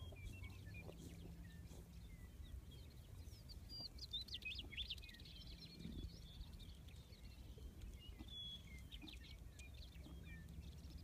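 Meadowlarks singing faintly: many short whistled notes and chirps, busiest a few seconds in, over a low steady background rumble.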